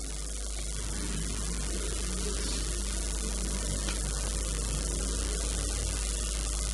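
Steady low electrical mains hum under an even hiss, with no speech.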